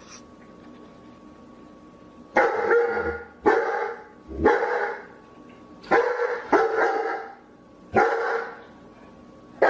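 A dog barking: after about two seconds of quiet, six loud, fairly deep barks come singly and in a quick pair, each lasting about half a second.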